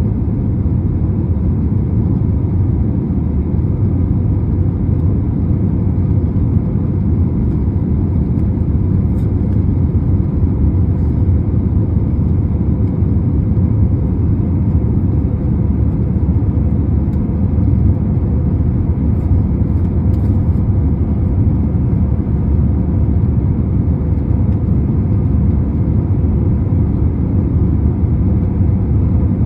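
Airbus A321 cabin noise in flight shortly after takeoff: the engines and the air rushing past the fuselage make a loud, steady low rumble heard from inside the cabin.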